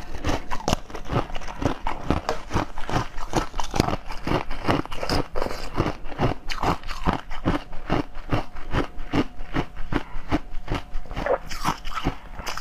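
Biting and chewing a firm pink jelly candy: a quick run of crunching, squelching bites, about three a second.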